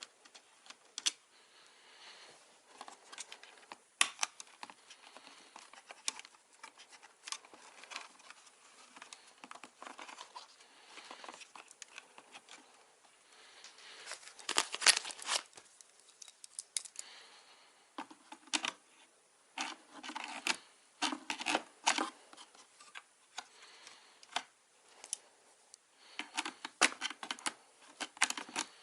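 Hands working on desktop PC hardware: scattered sharp clicks and taps of parts and tools, with scraping and rustling, coming in denser clusters about halfway through and again near the end.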